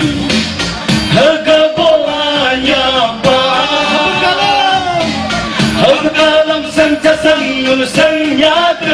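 A group of men singing a song in unison into microphones over amplified backing music, carried through a PA system.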